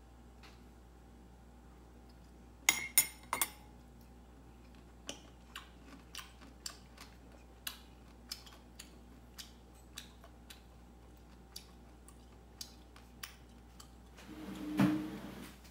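A metal fork clinks sharply three times against a ceramic bowl, then a run of light, evenly spaced ticks follows, about two a second. Near the end comes one louder, longer swell of sound.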